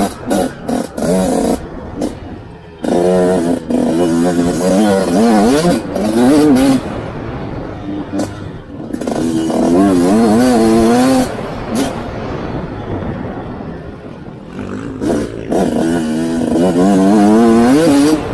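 Dirt bike engine under riding load, revving up and down over and over as the throttle is worked: a few short blips in the first two seconds, then long climbs in pitch that drop back and climb again.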